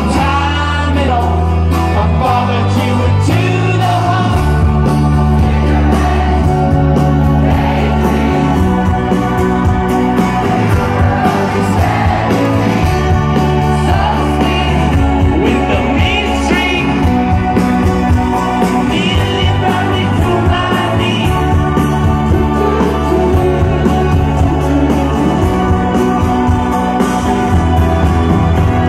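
Rock band playing live, with lead vocals over guitars, bass and drums, heard loud from within the audience.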